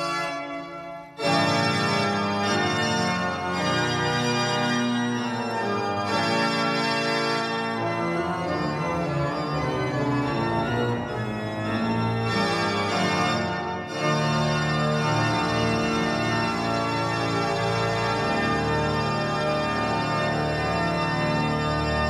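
Pipe organ playing loud, full sustained chords. A chord dies away in the first second, then the full organ comes back in, and the music breaks off briefly about two-thirds of the way through before the next chord.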